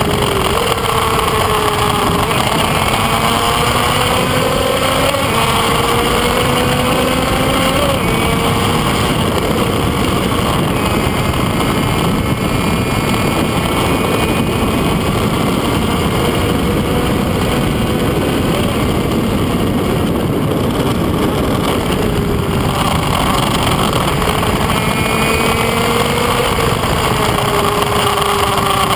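Kreidler Van Veen racing motorcycle's small two-stroke engine revving high at speed, its pitch climbing and then dropping back several times as it changes up through the gears. Heavy wind rush on the onboard camera covers everything, and the engine note fades under it for a while in the middle.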